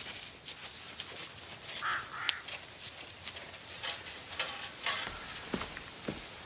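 Footsteps rustling and crunching through dry fallen leaves on a forest path, with two short calls, like a bird's, about two seconds in.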